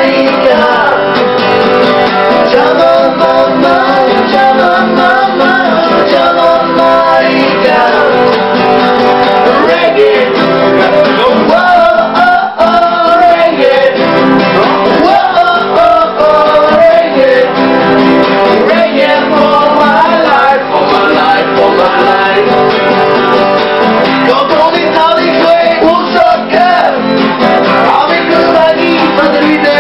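Two acoustic guitars strummed together, with a man singing a song over them.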